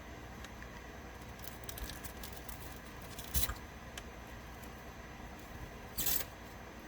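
Faint handling sounds of work on an arcade monitor chassis as its AC cord is removed: scattered light clicks, with two sharper clicks about three and a half and six seconds in.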